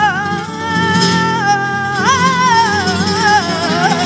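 A boy singing flamenco fandangos into a microphone, drawing out long ornamented notes whose pitch wavers and bends, with a fresh swell about halfway through, over a steady low accompaniment.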